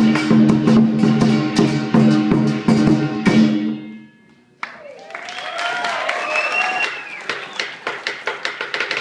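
Lion dance percussion, a drum with cymbals and gong, playing a fast beat that fades out about four seconds in. It is followed by shouting voices over a quick run of rhythmic strikes.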